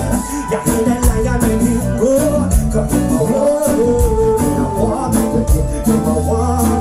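A live reggae band playing, with a man singing the lead line over guitars and a steady drum beat.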